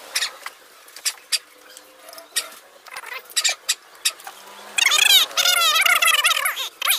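Scattered light clicks and taps, then about five seconds in a loud burst of birds chirping rapidly, with many quick arching chirps overlapping for a second or two before it thins out.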